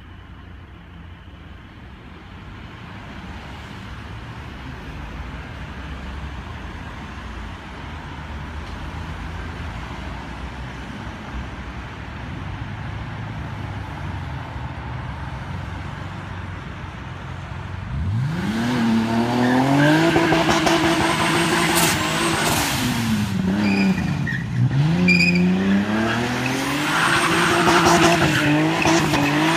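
Turbocharged BMW E30 325 with a 2.5-litre M20 engine: a low rumble grows slowly louder. About 18 seconds in, the engine revs sharply and is held high, dipping twice, as the rear tyres squeal and skid.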